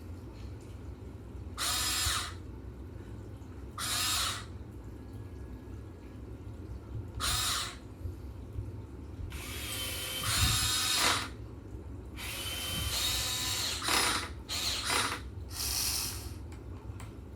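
Electric gear motors of a Huina 1580 all-metal RC excavator whining in a string of short bursts, a few seconds apart at first, then longer and closer together in the second half, over a steady low hum.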